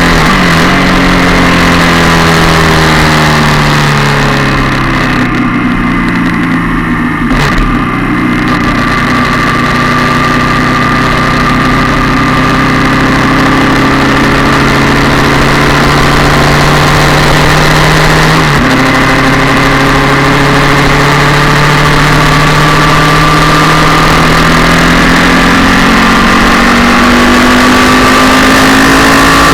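Yamaha MT-07 parallel-twin engine running loud through a twin-can aftermarket exhaust while being ridden. The revs fall for several seconds, with a brief break about a third of the way in. They jump up suddenly about two-thirds through, then climb slowly.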